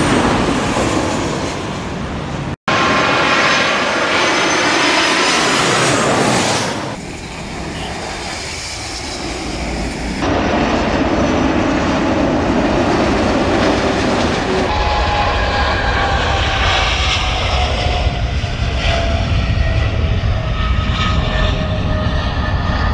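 Jet airliner engines heard across several spliced shots, first airliners passing low on approach, then a twin-engine widebody airliner climbing out at takeoff thrust. In the last part the engines give a deep, heavy rumble with a whine that slowly falls in pitch; the sound changes abruptly at each cut, with a short dropout a few seconds in.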